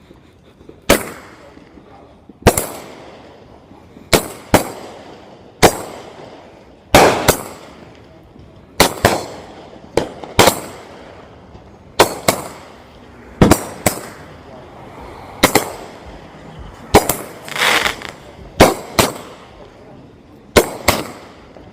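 A 500-gram consumer firework cake firing a steady string of loud shots, often in close pairs about a second or so apart, each bang trailing off in echo. A longer crackling stretch comes about three quarters of the way through.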